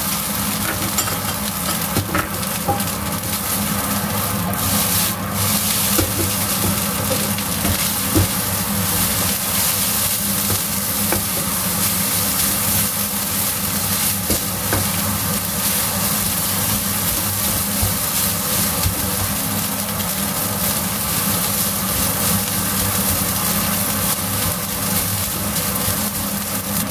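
Beef fried rice sizzling in a nonstick wok while a silicone spatula stirs and pushes it around, with a few small scraping clicks. A steady low hum runs underneath.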